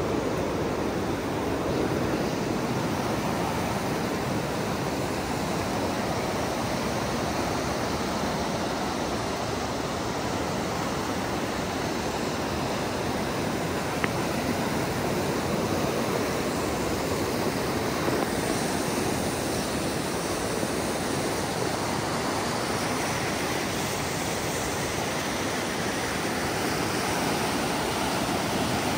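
River whitewater rapids rushing steadily, an even wash of water noise. A single sharp click about halfway through.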